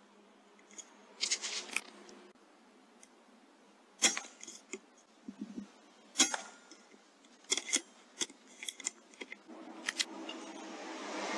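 Sharp cracks and metallic clicks from a .22 Airmaks Krait L PCP air rifle, the two loudest about 4 and 6 seconds in, typical of shots being fired and the action being cycled for the next pellet.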